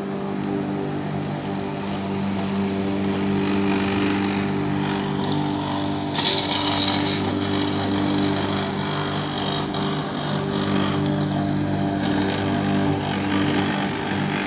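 Max Green corded electric rotary lawn mower running steadily while cutting grass, an even motor hum with a burst of louder hiss about six seconds in.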